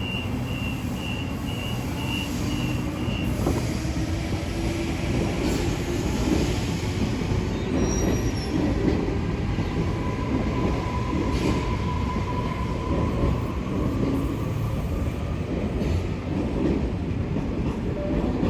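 A train running through the station platform with a steady rumble and wheel squeal. A string of short high beeps, about three a second, stops about three seconds in.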